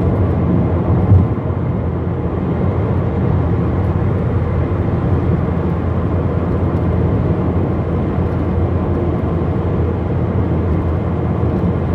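Steady road and engine noise heard inside a car cruising at highway speed, mostly low-pitched, with a brief louder moment about a second in.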